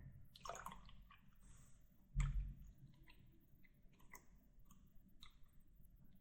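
Liquid dripping and lightly splashing into a glass jar: scattered faint drips and small splashes rather than a steady stream. A brief splash comes just under a second in, and a dull low thump, the loudest sound, about two seconds in.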